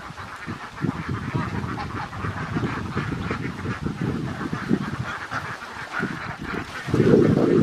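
Large flock of domestic ducks quacking and calling all at once, a dense, continuous chatter of many overlapping calls. It grows louder for about a second near the end.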